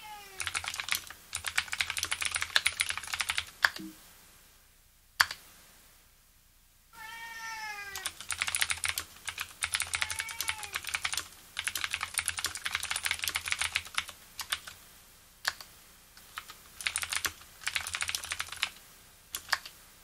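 Typing on a Leopold FC750R with spring-lubed Cherry MX Blue switches: clicky keystrokes in quick bursts with a few short pauses. A cat meows at the start, again with a longer, falling meow about seven seconds in, and briefly around ten seconds.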